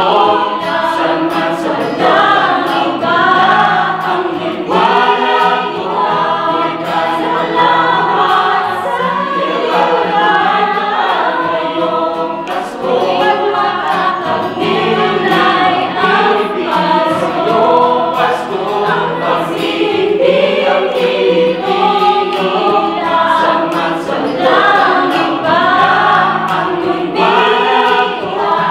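Mixed choir of men and women singing a Filipino Christmas song in Tagalog, accompanied by an acoustic guitar.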